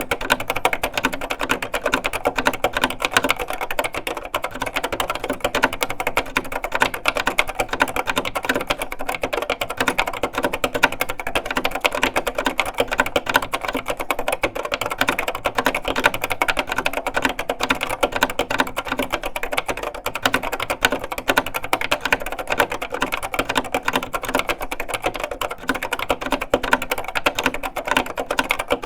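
Fast continuous typing on a Hewlett Packard 2624B terminal keyboard with Hi-Tek High Profile linear switches: a dense stream of clacky keystrokes.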